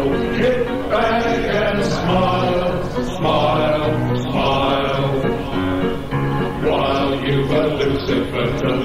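Music with a group of voices singing in phrases, like a choir.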